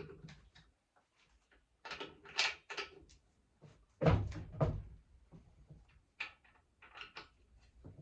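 Irregular clicks and knocks of equipment being handled, with a heavier double thump about four seconds in; no saw is running.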